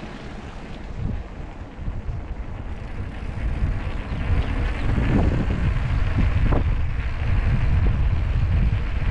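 Wind rushing over the microphone of a moving motorcycle, with a rumble of road and vehicle noise underneath. It grows louder from about two seconds in and stays loud.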